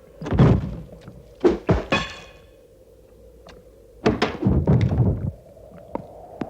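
A series of heavy thuds and knocks in irregular bursts, one with a brief ringing tone about two seconds in and a close cluster of thumps a little after four seconds, then a few sharp clicks near the end.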